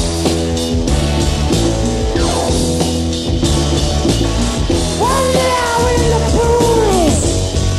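Rock band recording: bass, drums and sustained chords play, with no words. About five seconds in, a lead line slides up in pitch, holds, then slides down near the end.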